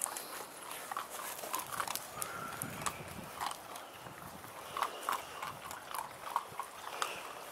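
Several puppies eating dry kibble from a steel bowl: irregular crunching, with kibble clicking against the metal.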